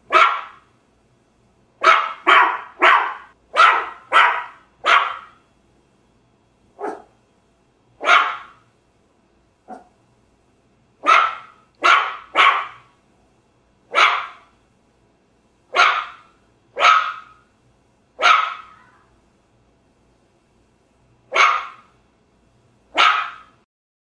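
A puppy barking: about twenty short, sharp barks with silence between, a quick run of six in the first few seconds, then single barks and pairs spaced a second or more apart.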